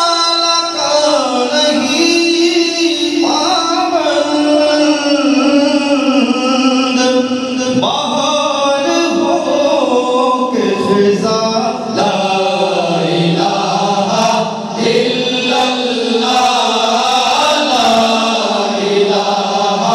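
Male nasheed choir singing a slow devotional melody in long held notes, a lead voice carried by the group of voices.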